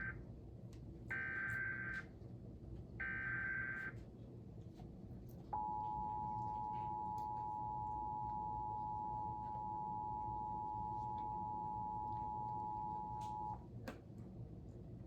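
Emergency Alert System test tones: the end of one and then two more one-second bursts of the buzzy digital SAME header data, followed after a short gap by the two-tone EAS attention signal, a steady dual tone held for about eight seconds before cutting off.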